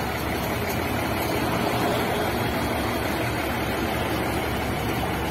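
Heavy diesel engines running steadily under load as a big four-wheel-drive tractor on dual wheels tows a truck through mud by a strap.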